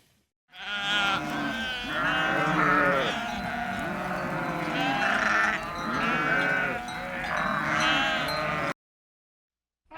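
Several sheep bleating over one another in a steady chorus of overlapping calls, which cuts off abruptly near the end.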